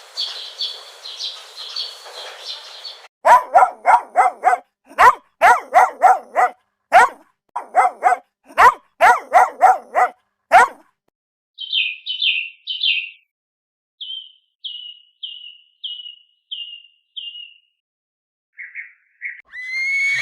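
A separate run of clips: high bird chirps over a hiss for about three seconds, then a dog barking repeatedly in quick runs of three or four barks for about seven seconds. After a pause come short, falling chirps, three and then six, ending with two lower notes.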